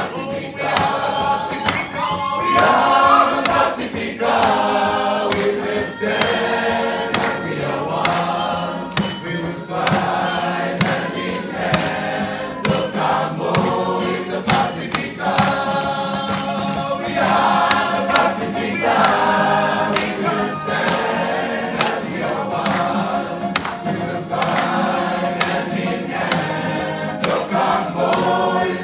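A mixed group of young people singing together in chorus, a Pacific Islander song sung with full voices, accompanied by steadily strummed guitars or ukuleles.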